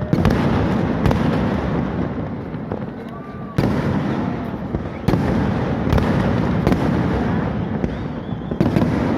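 Kerala temple-festival vedikkettu fireworks: a dense, continuous rattle of firecrackers with sharp, louder bangs every second or two, one stronger surge about three and a half seconds in.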